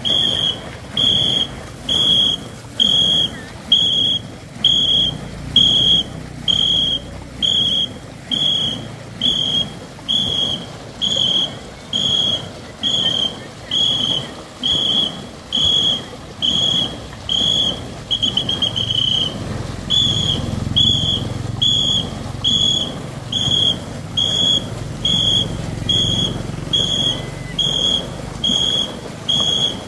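A whistle is blown in short, shrill, evenly spaced blasts, about one a second, calling the stroke rhythm for the paddlers of a racing ngo longboat. One blast a little past the middle is held longer and wavers. A low rush of water and crowd noise runs underneath.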